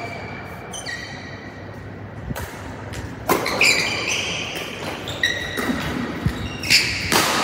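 Badminton shoes squeaking on a synthetic court mat as players move through a doubles rally, several short high squeaks, with a few sharp racket hits on the shuttlecock. The loudest hit comes near the end.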